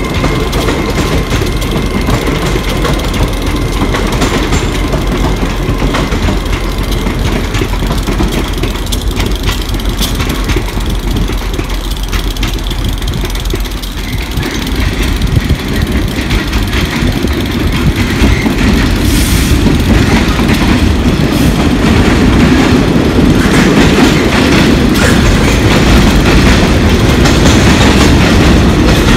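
Trains moving through a station: a steady rumble with wheels clattering over the rails, getting louder about halfway through as a heavier train rolls past close by.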